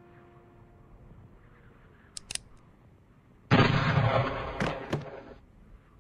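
Revolver gunshot: two sharp clicks about two seconds in, then a single loud shot about a second and a half later that rings on for about two seconds before cutting off.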